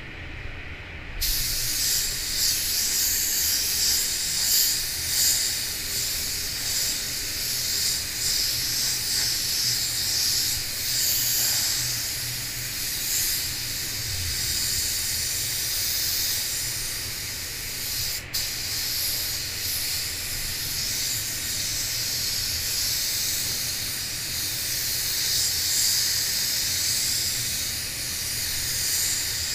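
Gravity-feed paint spray gun hissing with compressed air as it sprays white waterborne basecoat, a steady high hiss starting about a second in, with a brief break when the trigger is let off about two-thirds through. A low steady hum runs underneath.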